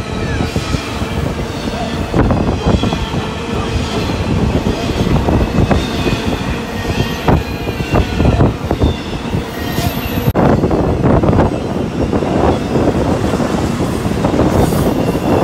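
Freight train cars rolling past at close range, wheels knocking over the rails with faint, wavering wheel squeal. About two-thirds of the way through, the sound jumps suddenly to a louder stretch of the passing train.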